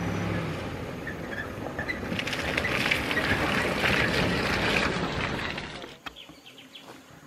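Maruti Gypsy driving past on a wet, muddy dirt track: engine and tyre noise swell as it passes close, then drop away sharply about six seconds in.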